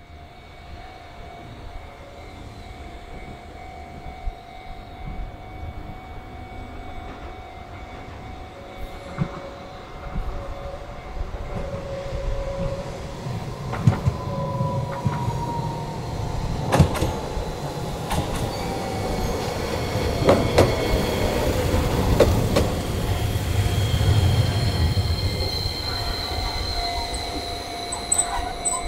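Chikuho Electric Railway 5000-series low-floor light rail car approaching and pulling into the station: a rumble of wheels on the rails that builds, with clattering knocks over the rail joints and a motor whine that falls in pitch as the car slows. A level-crossing bell rings steadily behind it.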